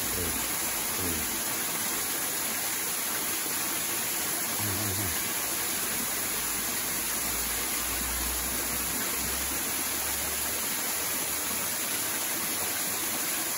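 Steady rush of water pouring into a shallow stream pool from a small cascade, an even, continuous splashing hiss.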